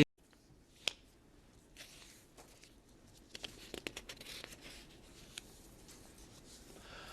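A quiet stretch of faint rustling and scattered small clicks, with one sharper click about a second in.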